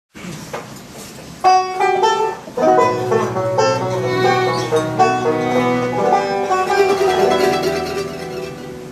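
A bluegrass band playing live: banjo, mandolin, acoustic guitar, fiddle and upright bass. It is soft for about the first second and a half, then comes in full and fast, easing slightly near the end.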